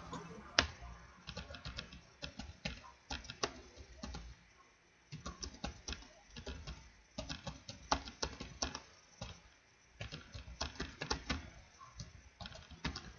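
Typing on a computer keyboard: runs of quick key clicks, broken by a couple of short pauses.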